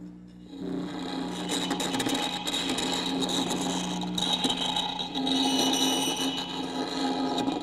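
Harsh scraping and rasping of a wooden stick worked against a device on the floor, starting about half a second in and cutting off suddenly at the end, over a steady low hum.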